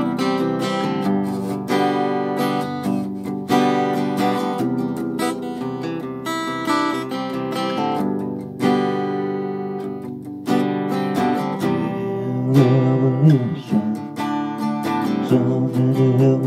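Acoustic guitar strummed in steady chords, an instrumental passage of a song.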